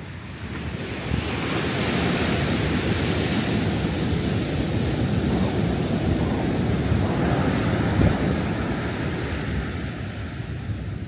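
Ocean surf: a wave breaks and its foamy wash rushes up the sand, swelling about a second in and easing off near the end.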